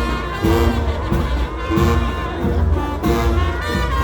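Loud music with brass instruments over a steady, heavy bass beat.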